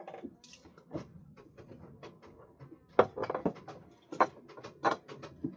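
Scattered, irregular knocks and clicks of objects being handled, loudest about three seconds in, with several more near the end.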